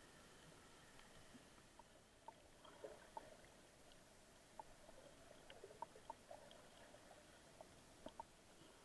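Near silence: a faint underwater hiss with scattered small clicks and ticks.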